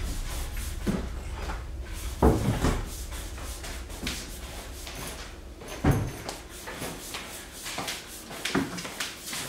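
Household knocks and thumps, about half a dozen spread out, the loudest a little over two seconds in and near six seconds, over a low steady hum.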